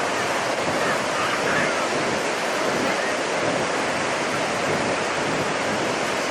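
Ocean surf washing on the shore, a steady rush of waves, with wind on the microphone.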